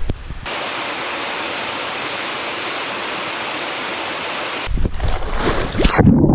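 Steady, even rush of a waterfall, cutting in abruptly about half a second in and stopping just as abruptly about four and a half seconds in. Low rumbling and buffeting follow near the end.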